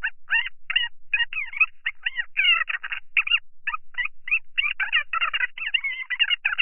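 Women talking on the phone, played fast-forward: rapid, high-pitched, thin chatter with no words to be made out, in short quick fragments that thin out for a moment around the middle.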